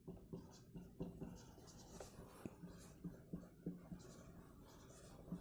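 Faint pen strokes scratching on paper, with light taps, in irregular short strokes.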